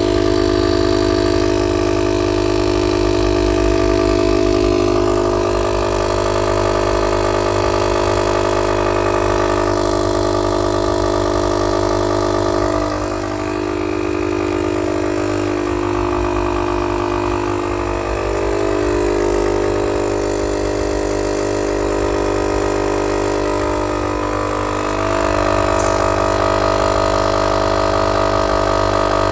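Motomaster 12V direct-drive portable air compressor running steadily as it pumps up a car tire, a continuous motor-and-piston hum; it dips slightly in loudness and pitch about halfway through and again a little later.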